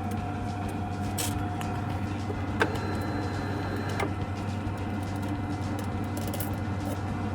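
Steady hum of the yacht's onboard machinery, with two sharp clicks about two and a half and four seconds in.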